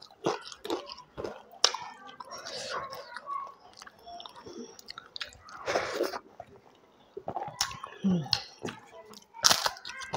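Close-miked chewing of crisp fried papad, with loud crunchy bites about two seconds in, around six seconds in and near the end, and quieter chewing between.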